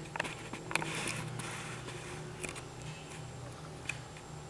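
Handling noise: a few sharp clicks and a short rustle in the first second and a half, then two single clicks later, over a faint low steady hum.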